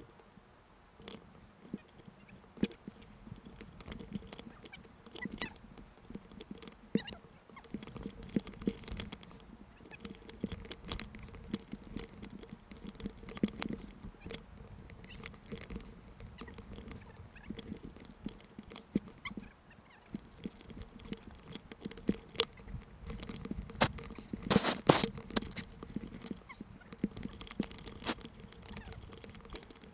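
Snow shifting and scraping against an action camera's housing while it is pressed into the snow: irregular clicks and rustles, with a louder flurry near the end.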